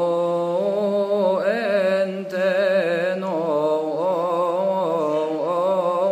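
A male cantor chanting a Coptic psalm solo in one continuous melismatic phrase, the pitch turning in quick wavering ornaments.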